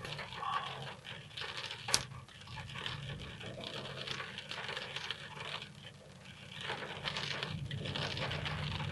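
Rain pattering on a car, with a single sharp crack about two seconds in. Near the end a low thunder rumble builds up.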